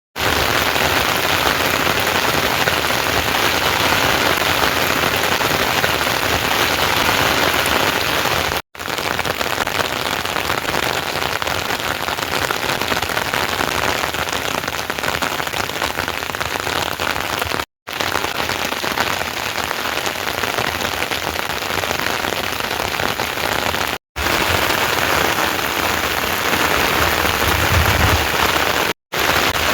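Heavy rain falling steadily, a dense even hiss that cuts out briefly four times.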